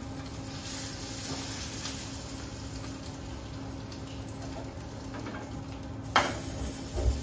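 Sirloin steak sizzling in a hot frying pan as it is seared and held with metal tongs, with a steady hum underneath. A sharp knock comes about six seconds in.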